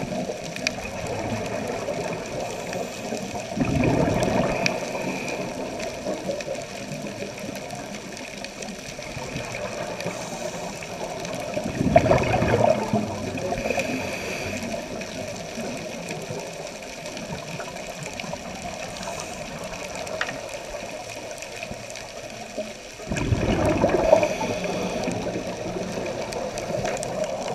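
Scuba regulator exhalation bubbles: three loud gurgling rushes of bubbles, about four, twelve and twenty-four seconds in, over a steady underwater hiss.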